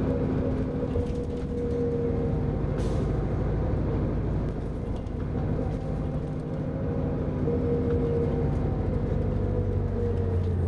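On board a 1999 New Flyer D40LF diesel bus under way: its Detroit Diesel Series 50 engine and drivetrain run with a steady low rumble and a whining tone that drops slightly in pitch near the end. A short hiss about three seconds in.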